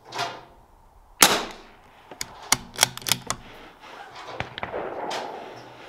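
A single sharp .22LR shot from a CZ 457 AT-ONE bolt-action rifle about a second in, followed by a quick run of metallic clicks as the bolt is worked to chamber the next round. Softer bursts of noise come just before the shot and near the end.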